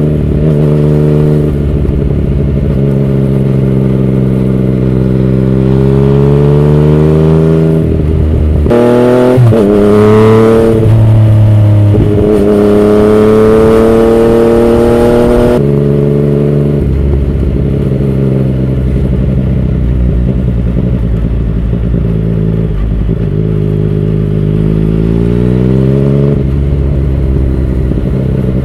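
Yamaha MT-09 inline three-cylinder engine through an Akrapovic carbon full exhaust, running under way with the revs climbing. There is a gear change about a third of the way in, then a steady pull. About halfway through the engine drops to lower revs, and it picks up again near the end.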